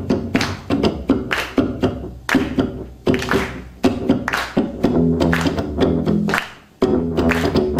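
Acoustic-electric U-Bass (bass ukulele) played live through an amplifier: a run of plucked bass notes, broken by sharp percussive hits about twice a second.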